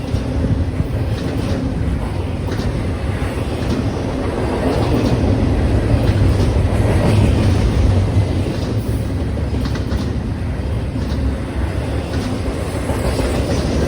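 BNSF intermodal freight train rolling past: a continuous rumble of wheels on rail with scattered clacks over the rail joints, swelling a little in the middle. No horn.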